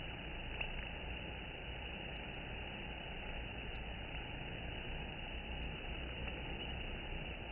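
Honeybees massed at a wooden hive entrance, heard as a steady, even buzzing hiss with no distinct pitch, with one faint click about half a second in.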